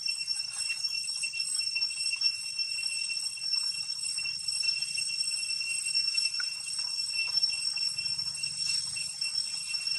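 Steady high-pitched insect drone, one unbroken ringing tone with overtones, over a faint low rumble, with a few brief faint squeaks.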